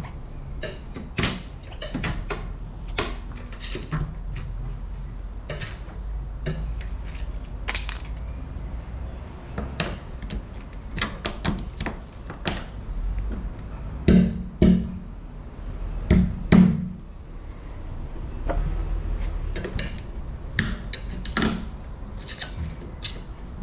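Repeated clicks, taps and knocks on a uPVC door frame as a double-glazed glass panel is worked loose from it, with two pairs of heavier thuds past the middle.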